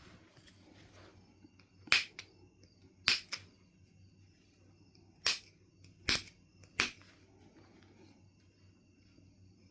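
Knife River flint being knapped: five sharp, separate clicks of a tool striking off flakes, unevenly spaced, one followed closely by a smaller click.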